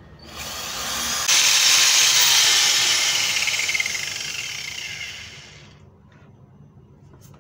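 Electric angle grinder with a freshly replaced bearing, test-run: the motor runs at full speed with a high whine, then winds down with a slowly falling pitch and stops about six seconds in. A few faint clicks follow near the end.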